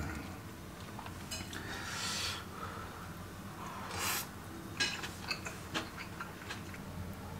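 A person eating rice with a metal spoon: soft mouth and breath noises as a spoonful is taken, then several light clicks of the spoon against a ceramic plate a little past halfway.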